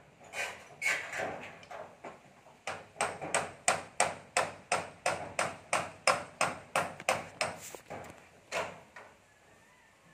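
Hammer blows on a metal sheet roof: a few scattered strikes, then a steady run of about three blows a second for some five seconds, and one last blow near the end.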